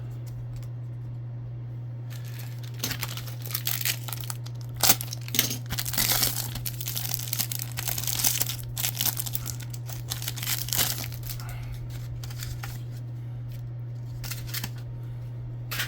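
A trading card pack wrapper being torn open and crinkled by hand, in irregular bursts over several seconds, over a steady low hum.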